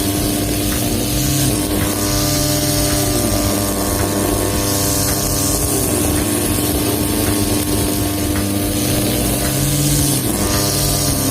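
Two-stroke brush cutter running at high revs while cutting grass. Its engine note dips and recovers every few seconds under load, with bursts of hiss from the cutter swishing through the grass.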